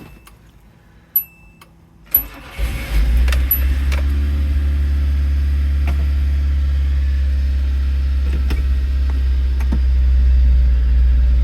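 Nissan Sentra engine cranked and started: a few light clicks, then a brief crank about two seconds in, after which the engine catches and idles steadily.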